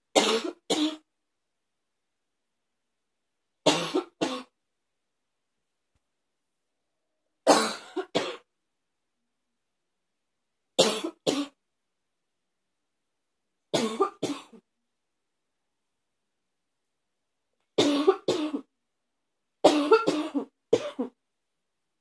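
A person's barky cough: seven short bouts of two or three harsh, barking coughs every three to four seconds, coming in tighter clusters near the end.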